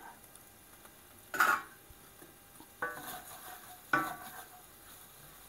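Stainless steel pan lid set down with a sharp metal clank about a second and a half in, then a spatula stirring and scraping a minced-meat and vegetable samosa filling in a stainless steel sauté pan, with a couple of short ringing metal knocks.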